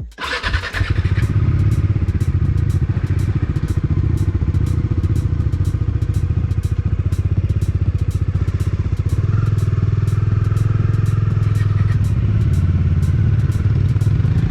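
Bajaj Dominar 400 motorcycle's single-cylinder engine running steadily and loudly, with a short rush of noise in the first second as it comes in.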